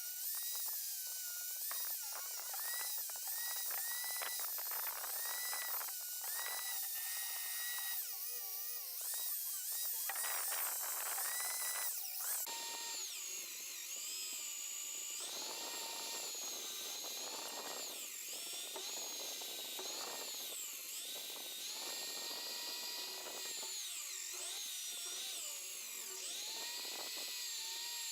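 Old electric hammer drill running, its motor whine repeatedly dipping in pitch and recovering.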